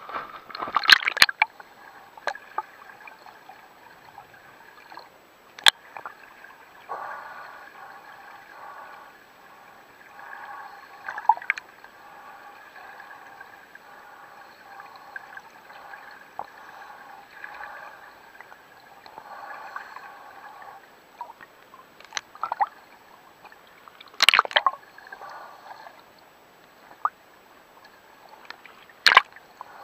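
Muffled underwater sound in a swimming pool: a scuba diver's exhaled bubbles gurgling in repeated stretches of a second or two, with a splash as the camera goes under about a second in and a few sharp knocks later on.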